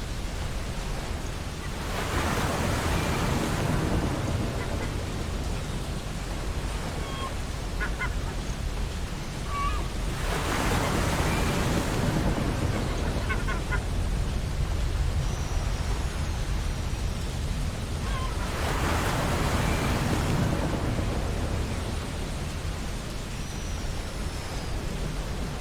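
Ocean surf breaking on a beach: a steady wash with three waves swelling and falling about eight seconds apart. Faint short bird chirps and whistles sound over it.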